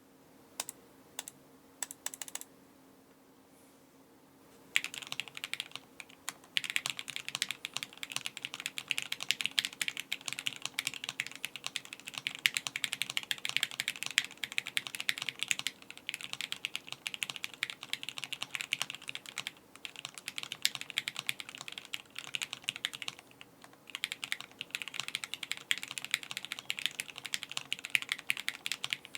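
MGA Standard Alice mechanical keyboard with 205g0-lubed Gateron Yellow linear switches on a carbon fibre plate, with no foam, being typed on. A few scattered keypresses come first, then fast continuous typing from about five seconds in, broken by a couple of brief pauses.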